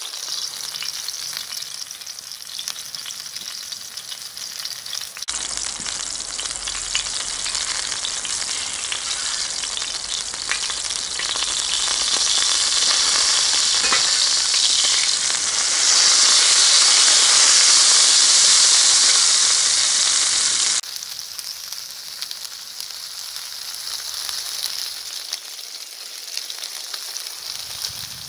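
Turkey cutlets sizzling as they fry in oil on a steel saj pan made from a harrow disc. It is a steady frying hiss, louder through the middle stretch and loudest about two-thirds through, with two abrupt shifts in level.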